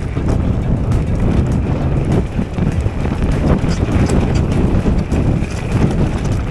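Wind buffeting the microphone of a mountain bike's camera at speed, with a steady tyre rumble and frequent short knocks and rattles of the bike over the trail.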